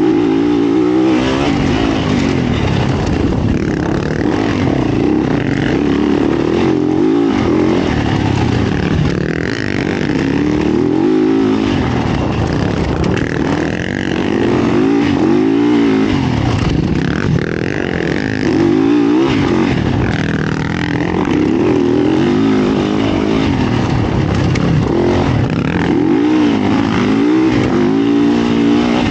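Yamaha YZ450F's single-cylinder four-stroke engine, heard from on board, revving up and dropping back again and again as the rider accelerates, shifts and rolls off the throttle.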